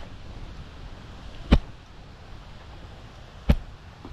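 Hiking staff tip striking the ground in a steady walking rhythm, one sharp thump about every two seconds, three in all. Wind rumbles on the microphone underneath.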